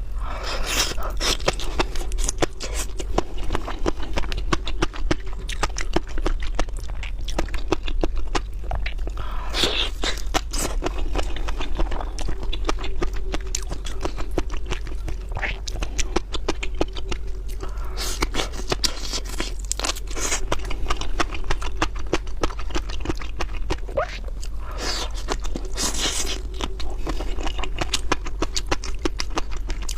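Close-miked eating of raw shrimp: steady wet chewing with dense clicking crunches and several louder bouts of crunching. A steady low electrical hum runs underneath.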